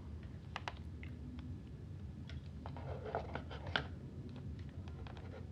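Faint, scattered clicks and small knocks of a camera's mounting plate being pushed and worked into the DJI Ronin-SC gimbal's quick-release clamp, with a cluster about three to four seconds in. The plate is tight and will not slide in, because the clamp's locking piece has not been loosened.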